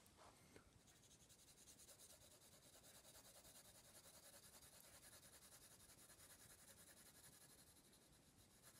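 Faint pencil shading on card: a graphite pencil scratching in rapid, even back-and-forth strokes, starting about a second in.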